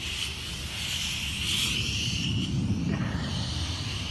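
Air die grinder with a burr bit gouging out corrosion holes in an aluminum boat hull: a steady high whine that stops about two and a half seconds in, over continuous low rumbling noise.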